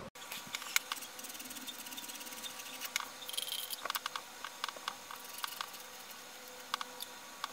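Faint, irregular small clicks and ticks of hands working the threaded silencer off the muzzle of a PCP air rifle, with a brief hiss a little after three seconds.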